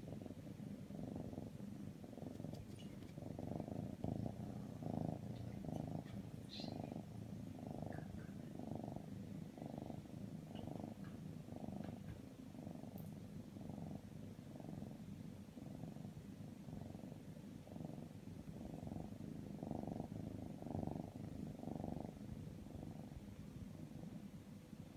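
Maine Coon kitten purring steadily while asleep. The purr swells and eases in an even rhythm, about three pulses every two seconds, following its breaths.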